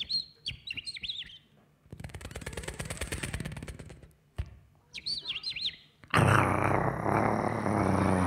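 Bird chirps imitated by a performer's voice: quick, high whistled chirps, a buzzing rattle for about two seconds, then more chirps. A loud, noisy rush takes over for the last two seconds.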